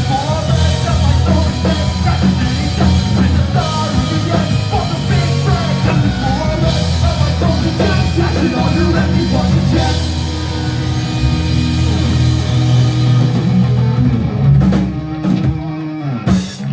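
Live pop-punk band playing loud and fast: distorted electric guitars, bass and drum kit, with wavering vocal lines in the first half. About fourteen seconds in, the song closes on a run of heavy crashes and hits, then stops abruptly.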